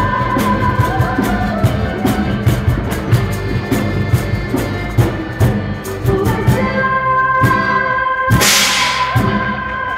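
Music with a steady drum beat and held tones, and a loud burst of noise about eight and a half seconds in.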